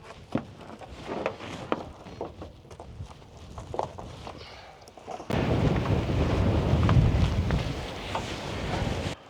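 Scattered small clicks and knocks of handling, then about five seconds in a strong gust of wind buffets the microphone with a loud low rumble that cuts off suddenly near the end.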